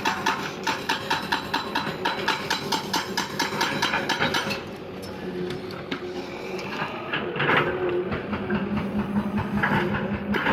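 Excavator running with a fast, even clanking of about five knocks a second, which gives way after four or five seconds to a steadier, duller running sound with a couple of louder scraping surges near the end.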